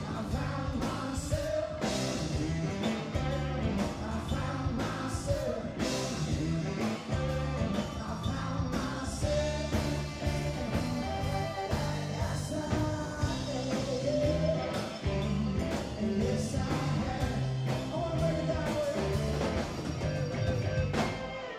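Live rock band playing in a large hall: drums, bass, electric guitars and keyboards over a steady beat, with a melodic lead line.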